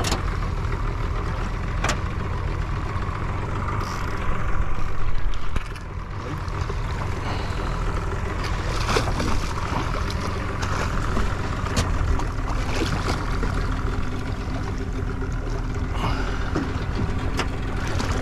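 Outboard motor idling steadily with the boat out of gear, plus a few sharp knocks. About four seconds in, a louder rush of noise lasts for a second or two.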